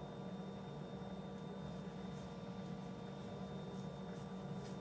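Steady low background hum with a faint hiss, and a few faint, brief ticks over it.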